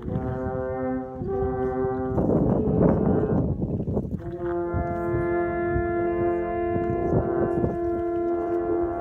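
Three wooden alphorns playing together. They hold notes that shift about a second in and break off after two seconds. After a pause filled with a rushing noise, the horns come back in about four seconds in and hold a long chord of several tones.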